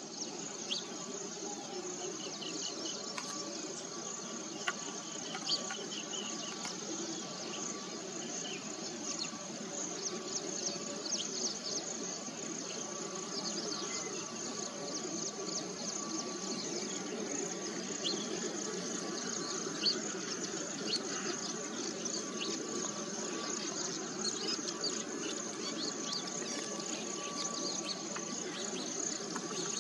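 Steady, high-pitched drone of insects with many short, scattered bird chirps over a low background hum.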